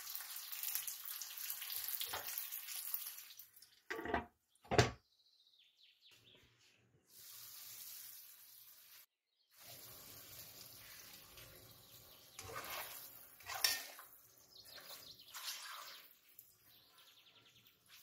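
Okra sizzling as it fries in a pan for about the first three seconds. Then come two sharp knocks and a string of short, separate kitchen sounds, some of them water-like.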